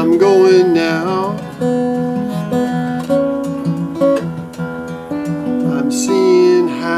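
Steel-string acoustic guitar played solo in an instrumental break, picked notes and chords ringing over a moving bass line, with two short bending notes near the start and near the end.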